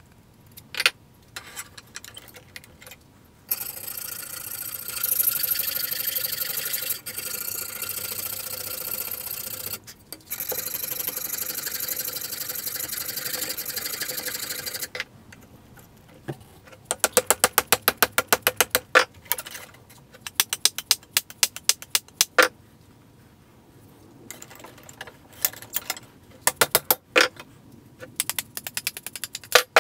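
Wooden axe handle being shaped by hand with a rasp: a long stretch of steady scraping, then bouts of quick, short strokes.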